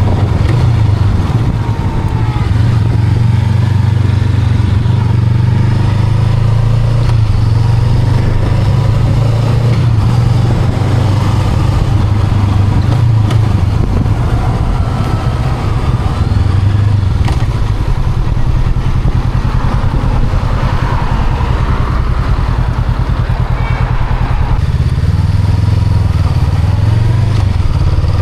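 Honda Rebel 500's parallel-twin engine running while the motorcycle is ridden, its note fairly steady, under a steady rush of wind and road noise.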